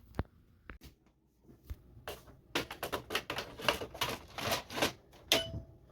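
Plastic paper cassette of a Canon TR8520 printer being handled, its paper guides slid and set: a few separate clicks, then a quick run of clicks and rattles ending in one loud snap with a short ring.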